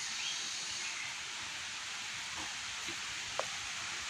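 Steady outdoor background hiss, with one short faint click about three and a half seconds in.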